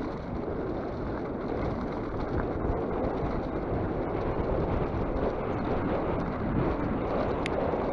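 Wind rushing over the microphone and tyres rolling on a dirt trail while riding a mountain bike, a steady rushing noise that grows slightly louder.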